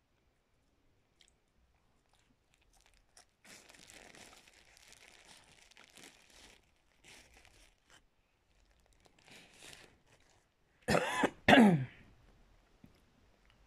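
Faint crunching as a person chews a salted cracker coated in cornstarch, then two loud coughs in quick succession near the end.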